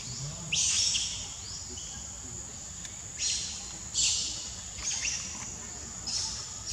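Forest ambience: a steady high insect drone with five short, high, downward-sweeping bird calls, spaced about a second or more apart.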